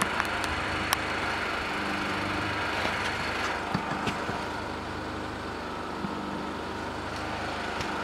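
A steady motor-like hum, with a few light clicks and knocks about one and four seconds in.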